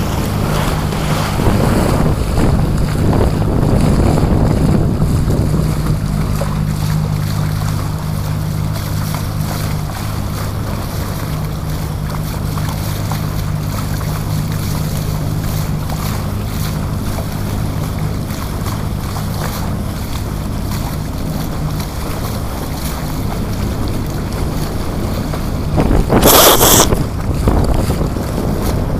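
Bow wave of a trimaran's hull rushing through the water, with wind buffeting the microphone and a steady low hum underneath. Near the end a brief, loud splash hits.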